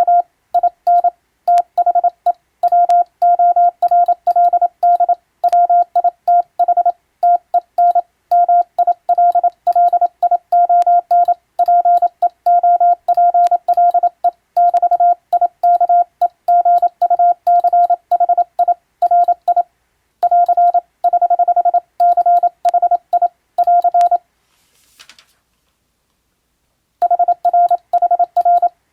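Morse code being sent: a single steady tone keyed on and off in dots and dashes, spelling out a radiotelegram in English-alphabet Morse. The keying stops for about three seconds near the end, with a faint brief rustle in the gap, then resumes.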